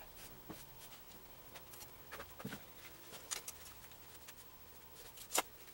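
Faint scattered clicks and light scrapes of a trowel being picked up and handled over a mortar bed, with one sharper click near the end.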